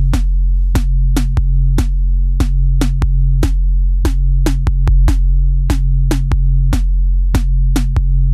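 Electronic background music: a drum-machine beat of sharp clicking hits, two to three a second, over a deep held bass.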